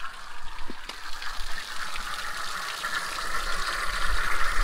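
Steady hiss of hose water running through a rusty engine block's cooling passages, flushing out rust and muck.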